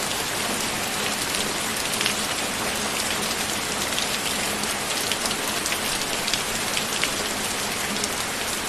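Steady rain falling on a surface, a constant hiss with scattered individual drops ticking through it.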